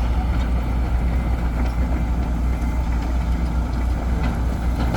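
Dump truck's diesel engine running steadily at low revs, with a few faint knocks.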